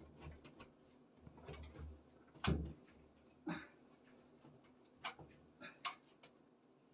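A few separate sharp knocks and clicks, the loudest about two and a half seconds in, over a faint background.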